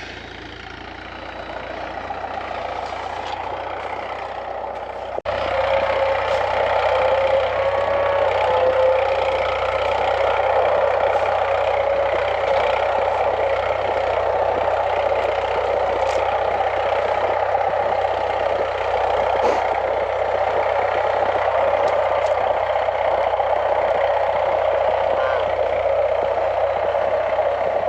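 A motor vehicle's engine running steadily. It jumps louder at an abrupt cut about five seconds in.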